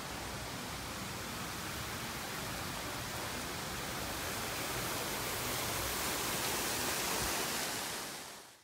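A steady, even hiss of outdoor noise, fading out just before the end.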